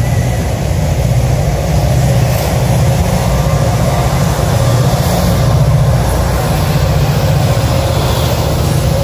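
Intermodal freight train rolling past close by, flatcars loaded with semi-trailers: a loud, steady rumble of steel wheels on the rails.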